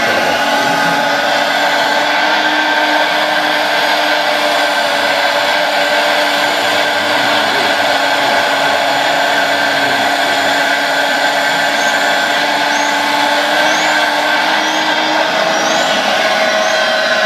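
Hydraulic pump of an RC model excavator whining steadily as the machine digs, with several steady tones over a hiss. Short, high rising chirps repeat about twice a second in the last few seconds.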